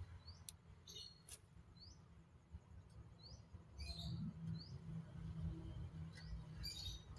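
Asian pied starling (jalak suren) calling: short rising chirps about every second and a half, with three harsh buzzy notes, over a low steady hum that grows louder about halfway through.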